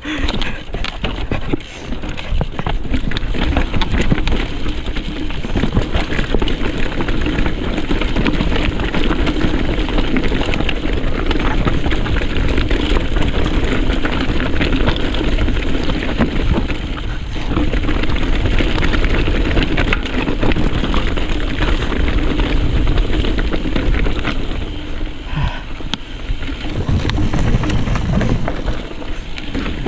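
Mountain bike riding down a rough, rocky trail: tyres grinding over rock and dirt and the bike rattling with constant small knocks, under heavy wind rumble on the camera microphone.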